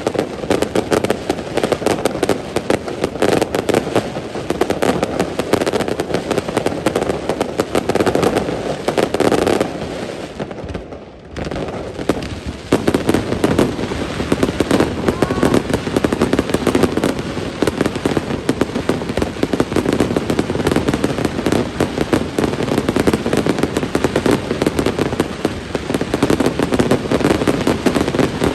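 Aerial fireworks display going off in a dense, continuous barrage of bangs and crackles, with a brief lull about eleven seconds in.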